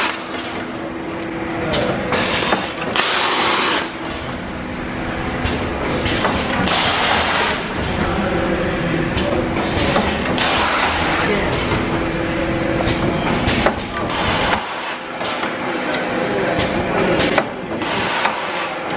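Rotary pouch filling and sealing machine running: a steady mechanical hum with short hissing bursts every second or two as the carousel indexes the pouches through its stations.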